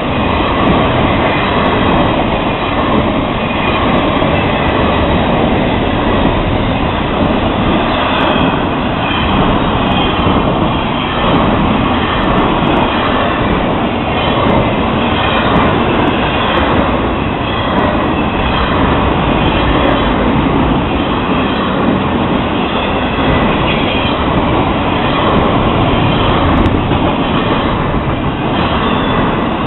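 Florida East Coast Railway intermodal freight train rolling past close by: a steady, loud rumble and clatter of steel wheels on the rails as truck trailers on flatcars and container cars go by.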